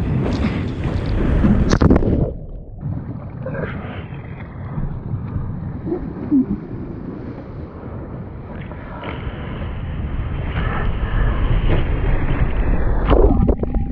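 Ocean surf and water rushing and splashing right against a camera at water level, with wind buffeting the microphone and a heavy low rumble. The sound goes briefly dull a little after two seconds in.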